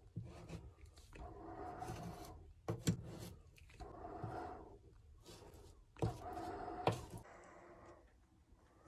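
A wooden mixing stick scraping thickened epoxy into screw holes in a fiberglass engine pan, in repeated strokes of about a second and a half, with a few sharp taps of the stick.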